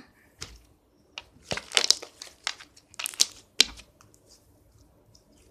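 Slime being squeezed and worked in the hands, giving off a run of irregular sharp pops and crackles that die away after about four seconds.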